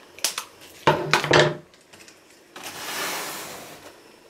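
Scissors and plastic packaging being handled while a toy pinwheel is cut free of its wrapper: a few sharp clicks, a louder short noise about a second in, then a longer rustle of plastic.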